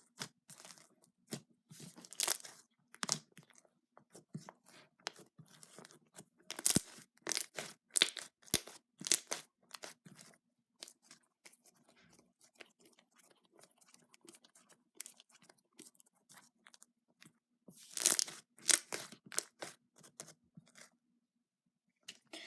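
Slime being kneaded, squeezed and stretched by hand with glitter mixed in, giving off runs of wet clicks and crackling pops, heaviest about six to ten seconds in and again near the end. A faint low hum sits underneath and stops shortly before the end.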